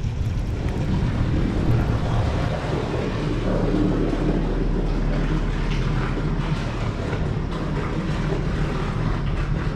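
A boat motor running steadily on board the bass boat, a low even drone.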